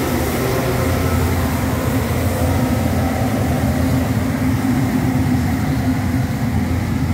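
Compact street sweeper running past with a steady engine hum, working its kerbside brush.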